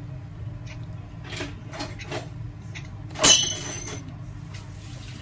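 Tableware being handled during a meal: a few soft taps and clicks, then one sharp clink of something hard striking a dish about three seconds in, with a short ringing tone. A steady low hum runs underneath.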